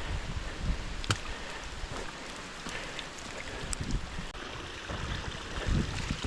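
Steady rush of water from a trail-side cascade, with a few low thumps near the end.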